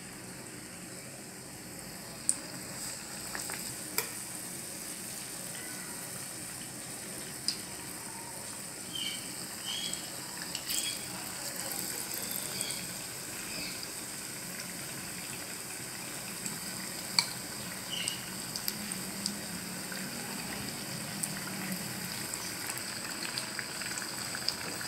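Gram-flour-battered ajwain leaf bhajjis deep-frying in hot oil: a steady sizzle, with a few sharp clicks along the way.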